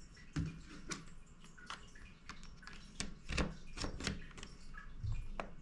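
Plastic clips of a laptop's bottom cover clicking and ticking as a pry tool works along the seam to unsnap it, with scattered irregular clicks, a few soft knocks and a sharper click near the end.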